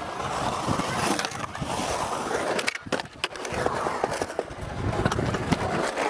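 Skateboard rolling and carving on the concrete of a skate bowl, a steady wheel rumble broken by sharp clacks of the board and trucks. It cuts off abruptly near the end.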